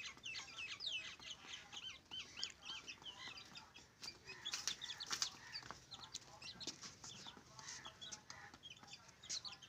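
Aseel chicks peeping rapidly and continuously in short high chirps while feeding beside their mother hen.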